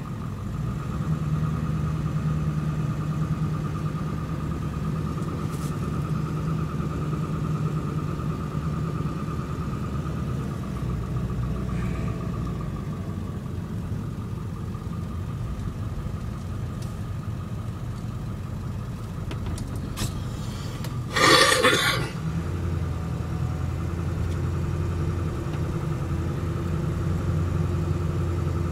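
Truck engine and road noise heard from inside the cab while driving, a steady low drone with a faint steady whine above it. About three-quarters of the way through comes a short, loud rushing burst lasting under a second, after which the engine note sits lower.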